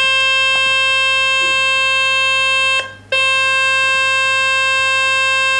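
Smartphone loudspeaker playing a loud, steady buzzing tone from a speaker-cleaning website, with a short break about three seconds in. The tone is meant to vibrate dust and water out of the speaker grille.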